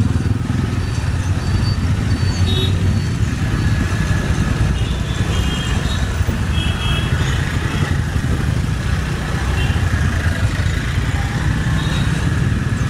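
Dense city road traffic heard from a two-wheeler riding through it: steady engine and road rumble, with several short, high horn beeps from nearby vehicles.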